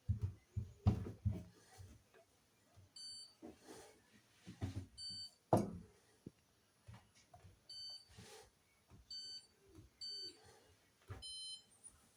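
Hoover washing machine's control panel beeping as its programme and options are selected: about six short electronic beeps spread over several seconds, the last one longer and at a different pitch. Soft low knocks and clicks of handling fall between them.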